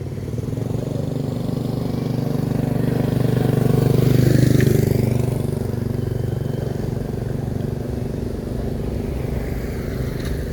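Motor vehicle engine running steadily, swelling louder about four seconds in as it passes close and then easing back.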